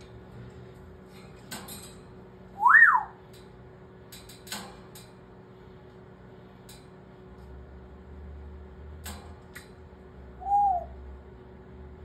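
African grey parrot whistling: one loud whistle that swoops up and back down, a few seconds in, and a shorter, softer arched whistle near the end, with a few sharp clicks in between.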